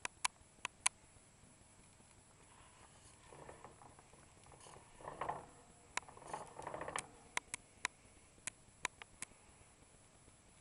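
Faint rustling in wood-shaving bedding as Roborovski dwarf hamsters scurry about, with scattered sharp clicks: a quick run of four near the start and more through the second half.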